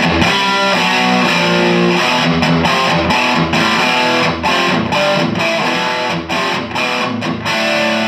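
Electric guitar played through the Dynamo GTS Flight Rig's clean channel (a four-12AX7 tube preamp into a solid-state power amp) with the gain turned up, giving a crunchy, lightly overdriven rhythm tone. Loud strummed chords with short choked breaks between them.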